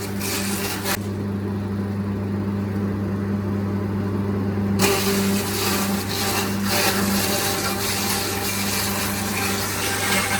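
Sawmill machinery running steadily, with a constant low hum under a rushing hiss. The higher part of the hiss drops away about a second in and comes back about halfway through.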